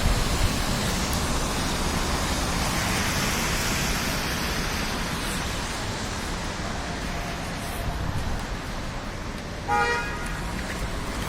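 Steady noise of street traffic, with a short car horn toot near the end.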